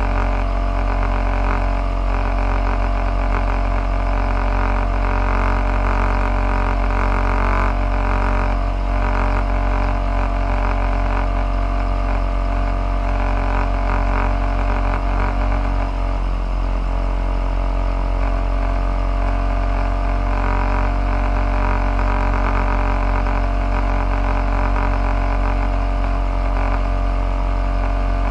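Motor vehicle engine running steadily, a constant low drone that holds one pitch throughout.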